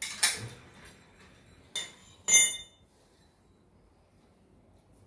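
Metal parts of a small traditional popcorn machine clanking as they are handled: three metallic knocks in the first two and a half seconds, the last the loudest, ringing briefly.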